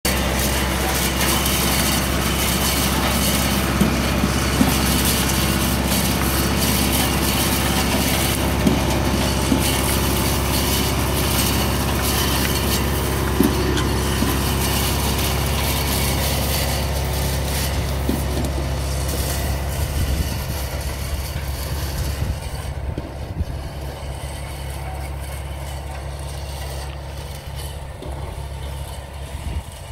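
Tractor engine running steadily while a tractor-mounted Binger pre-pruner's rotating cutter drums chop through vine canes with a constant crackle and a few sharp snaps. The sound fades over the last several seconds as the machine moves away.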